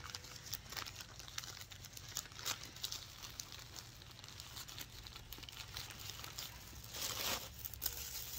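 Clear plastic bag and white paper wrapping crinkling as a wrapped item is slid out of the bag and unfolded by hand, with a louder rustle about seven seconds in.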